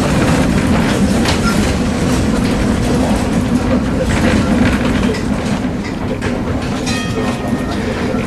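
Tram running along street rails, heard from inside the car: a steady rumble and low hum, with a few sharp clicks from the wheels along the track.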